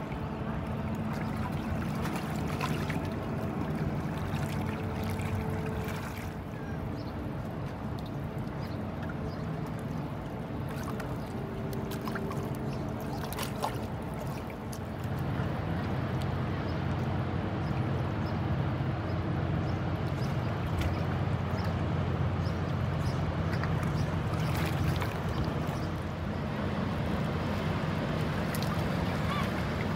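A boat's engine running with a steady low hum, growing louder about halfway through.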